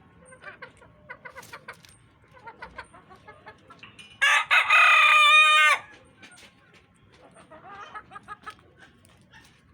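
A rooster crows once, loudly, for about a second and a half, starting about four seconds in. Hens cluck softly and briefly before and after the crow.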